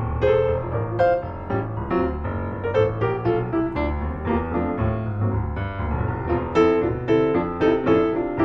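Background music: solo piano playing a gentle melody over sustained bass notes.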